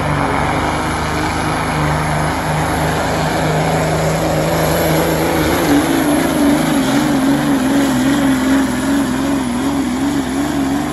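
Semi truck's diesel engine running flat out under heavy load as it drags a pulling sled, the engine note wavering up and down rapidly in the second half. The sound drops away at the very end as the pull finishes.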